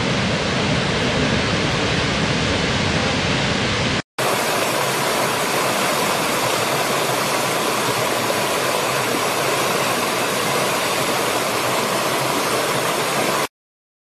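A large waterfall pouring steadily, with a deep rumble under the hiss of the water. About four seconds in it breaks off briefly and gives way to a smaller rocky stream rushing over stones, lighter and without the deep rumble, which cuts off suddenly near the end.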